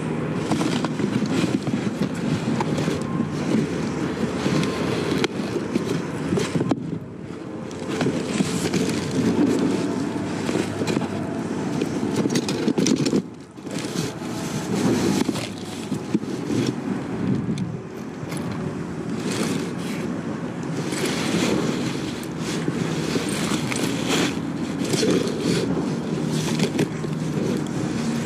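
Rummaging through a dumpster: trash rustling, crackling and scraping, over a steady low hum from a running vehicle. The rummaging stops briefly about 13 seconds in.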